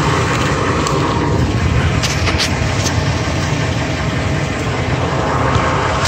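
2002 Ford F-150's V8 engine idling steadily, heard from beneath the truck, with a few light knocks around two seconds in.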